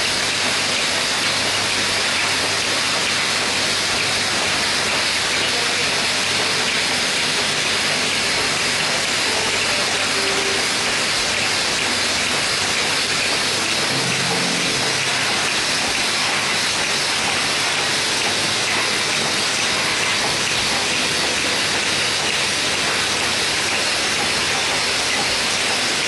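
Automatic cap lining machine running, heard as a loud, steady, even hiss with no clear rhythm.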